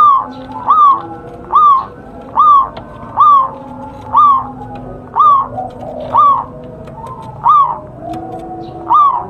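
Zebra dove (perkutut) calling: a steady series of short, clear, arched cooing notes, about one every 0.8 seconds, a dozen in a row.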